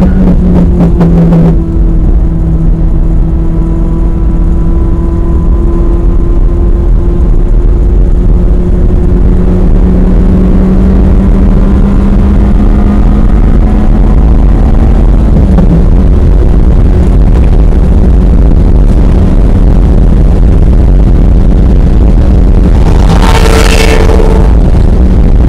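Ferrari F355 Challenge's V8 heard from inside the cabin at speed over heavy road and wind rumble. The engine note drops sharply about a second and a half in, climbs slowly, and dips again about halfway through. Near the end a second car's engine rises loudly and sharply as it passes close alongside.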